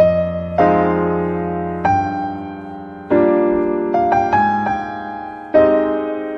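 Background piano music: slow, gentle chords, each struck and left to fade, with a short run of quicker, higher notes about two-thirds of the way through.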